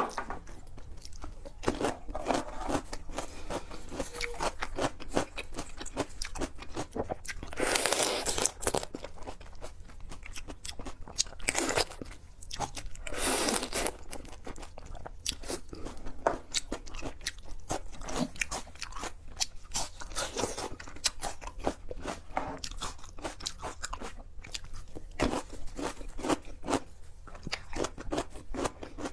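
Close-miked eating: seafood being bitten, chewed and crunched, with many small wet clicks and louder bursts about 8 and 13 seconds in.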